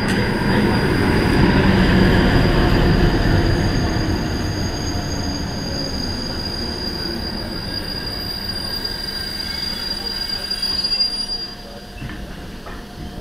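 A ČD class 754 diesel locomotive and its passenger coaches rolling past. The rumble is strongest about two to three seconds in, then a steady high-pitched squeal from the wheels runs as the train slows, ending about eleven seconds in.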